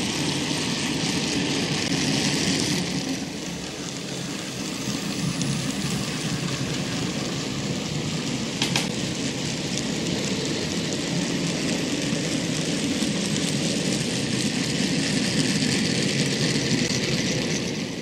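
OO gauge model goods train running past on the track, making a steady rolling noise of wheels on rails, with one sharp click about nine seconds in.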